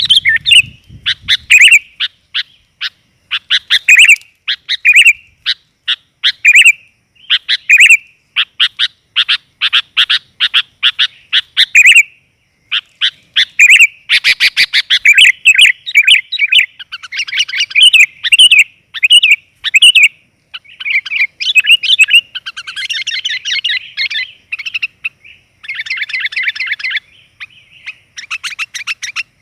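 Sooty-headed bulbul (kutilang) calling energetically in fast, chattering runs of chirps, phrase after phrase with short pauses between. It is the call used as a lure to draw in male kutilang.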